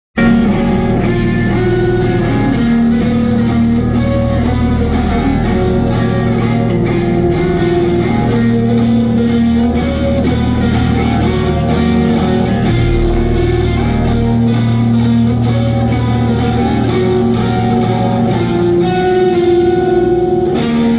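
Live band playing loudly, with electric guitar over drums and bass, in long held, repeating notes.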